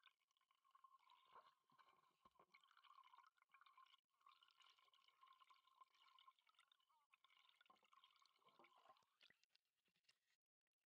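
Near silence: a faint steady high whine with scattered faint crackles, dropping away to nothing near the end.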